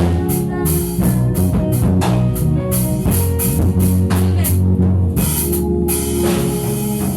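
Music with a drum kit keeping a steady beat over held bass and guitar-like notes, in a rock style.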